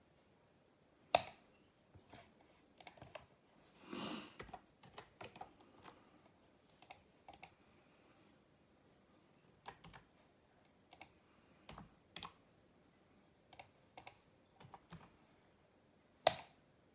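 Faint, irregular keystrokes on a computer keyboard as a web form is filled in, with a sharper, louder click about a second in and another near the end.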